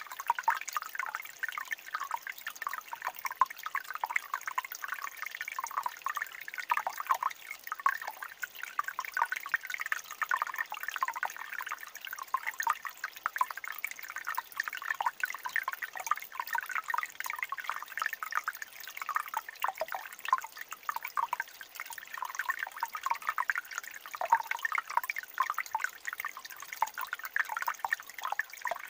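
Small mountain stream trickling between rocks: a steady, busy patter of little drips and gurgles with no lull.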